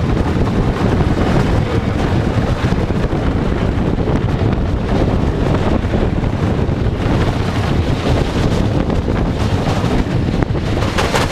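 Wind buffeting the microphone over the steady rumble of a wooden roller coaster train running along its track. A few short knocks come near the end.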